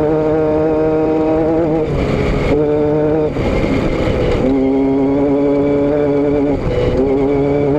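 Vehicle engine drone, steady in pitch, broken a couple of times by short rougher stretches, with the pitch settling lower about halfway through.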